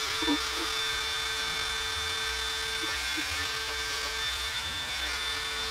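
A handheld power tool running continuously at a steady speed: a constant motor hum with a scraping hiss over it, as it works against the engine.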